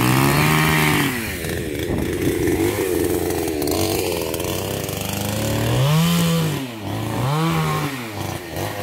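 A chainsaw being revved: its pitch rises and falls in about one-second throttle blips near the start and several times near the end, with a stretch of steadier running in between.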